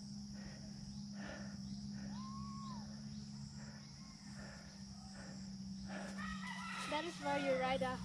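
A rooster crowing during the last two seconds, over a steady low hum.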